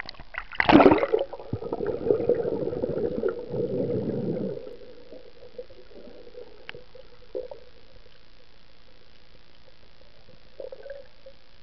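Water heard through a waterproof camera's housing as a freediver dives from the surface: a splash about half a second in, then muffled rushing and gurgling water for about four seconds. After that it settles to a quiet, steady underwater hum with a few faint knocks.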